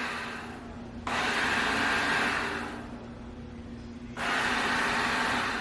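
Anker eufy RoboVac 25C robot vacuum running with a steady hum, with two louder whooshing stretches, starting suddenly about a second in and again about four seconds in and each tailing off, as it is driven under manual app control.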